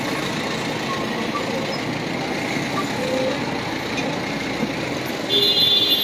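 Steady engine and road noise of a slow-moving vehicle, then a loud, high-pitched horn sounds a little after five seconds in.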